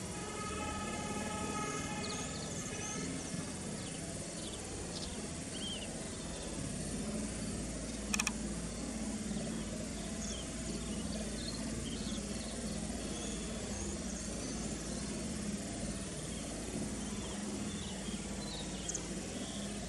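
Outdoor ambience: a steady background hiss with a low hum, scattered faint short high chirps, a brief pitched call in the first two seconds, and a single sharp click about eight seconds in. The soaring vultures themselves make no audible sound.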